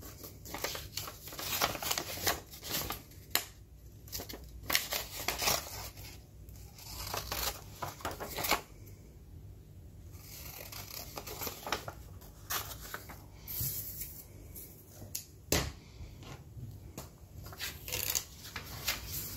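Scissors snipping through folded book-page paper, followed by the paper being handled, folded and creased: a string of short crisp snips and rustles at irregular intervals, with a quieter pause partway through.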